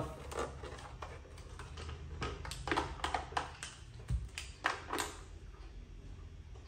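Scattered light knocks and clicks of an induction cooktop and rice-cooker inner pots being handled and set down on a tile floor, with a low thump about four seconds in.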